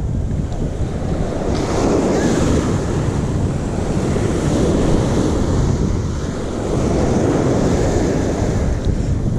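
Surf washing on the beach with wind buffeting the microphone, a loud, steady rush that swells and eases slightly.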